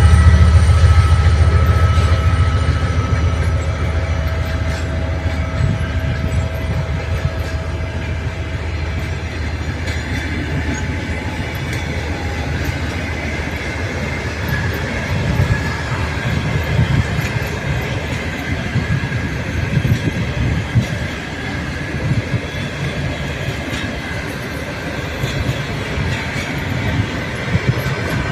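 Russian long-distance passenger train passing at speed, its carriages rolling by with wheels knocking over the rail joints. A heavy low rumble at the start fades over the first few seconds.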